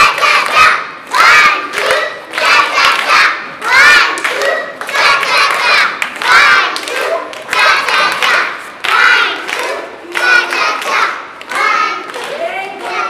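A group of young children chanting loudly in unison, with rhythmic hand clapping in time with the chant.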